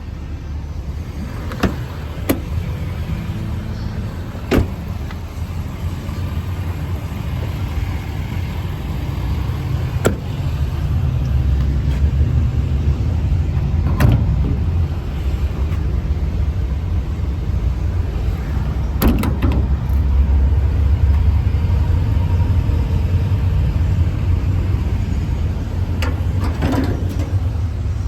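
Ford 6.7 Power Stroke diesel running with a steady low rumble that grows louder about ten seconds in. A few sharp clicks and knocks are scattered over it.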